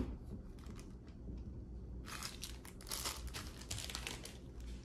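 Clear plastic bag crinkling as it is handled, in a run of crackles starting about two seconds in.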